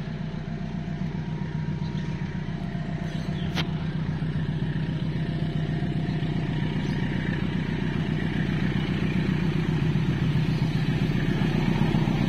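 CC 203 diesel-electric locomotive approaching along the track with a passenger train, its engine drone growing steadily louder as it nears. A brief click about three and a half seconds in.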